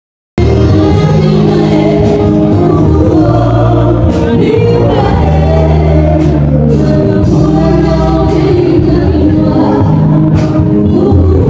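Music with a singing voice and heavy bass, cutting in suddenly after a brief moment of silence.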